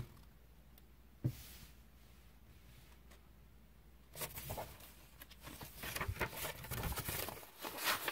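Paper pages of a printed instruction booklet being handled: one sharp click about a second in, then, after a quiet stretch, irregular rustling and crinkling of pages being turned from about four seconds on.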